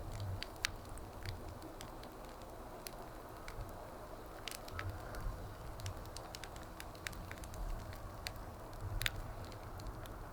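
Wood fire crackling: frequent, irregular sharp snaps and pops over a steady low hiss, with one louder pop about nine seconds in.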